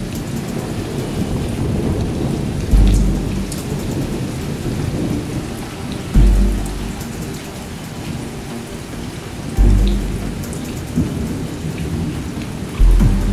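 Steady heavy rain with deep thunder booms, four of them evenly spaced about three and a half seconds apart, each fading away over a second or so.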